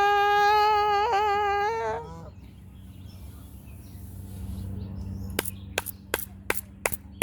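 A woman's singing voice holds one long note, ending about two seconds in. Then comes a quiet stretch with a faint low hum, and a run of about seven sharp clicks near the end.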